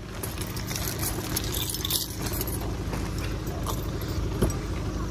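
A car engine idling steadily, with light metallic jingling over it and a sharp click about four seconds in.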